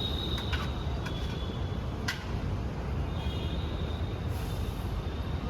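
Steady street traffic rumble, with a thin high squeal that comes and goes and a few sharp clicks.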